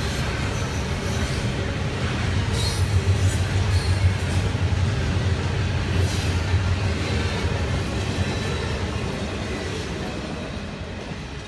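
Double-stack intermodal well cars of a freight train rolling past: a steady low rumble of steel wheels on the rails, with a few brief sharp clicks about three to six seconds in. The sound eases off gradually near the end.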